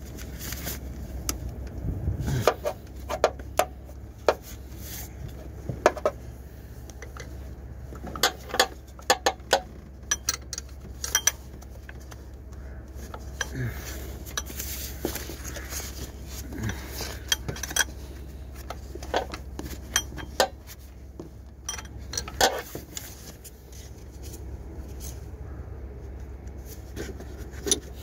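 Irregular metallic clicks and clinks of a gloved hand and tools working among parts in a car's engine bay, over a steady low hum.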